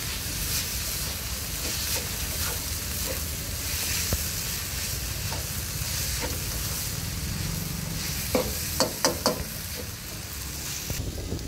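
Ginger chicken sizzling in a nonstick wok as a spatula stirs and tosses it, with a steady hiss of frying. About three-quarters of the way in, a quick run of about four sharp knocks of the spatula against the pan.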